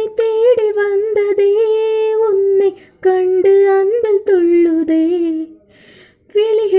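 A woman singing a Tamil song solo, without accompaniment, in long held phrases. There is a brief break about two and a half seconds in and a longer pause near the end before she carries on.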